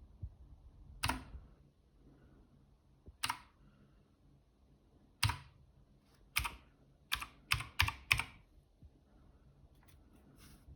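Keychron K2 mechanical keyboard keys pressed one at a time: single clacks spaced a second or two apart, then a quicker run of five near the end, followed by two faint taps.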